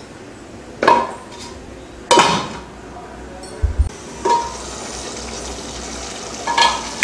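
A stainless steel lid and utensil clanking against a metal cooking pot as the pot is covered: about four sharp metallic clanks, each with a short ring.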